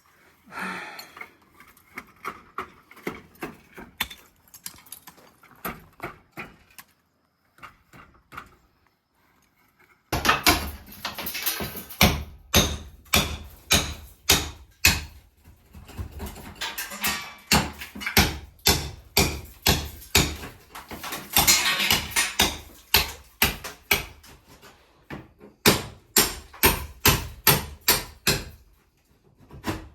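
Demolition work on a brick fireplace chimney: a long run of sharp knocks and clatters, about two to three a second, faint at first and abruptly louder about a third of the way in, with stretches of rattling debris.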